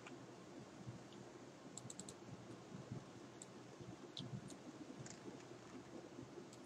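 Faint computer keyboard typing: scattered keystroke clicks, with a quick run of several about two seconds in, over steady low background noise.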